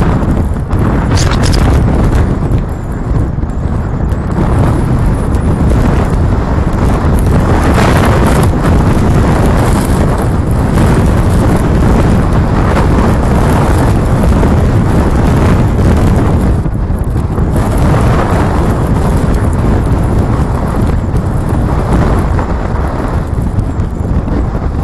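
Strong wind buffeting the microphone: a loud, low rumble that swells and eases in gusts, mixed with road noise from the car.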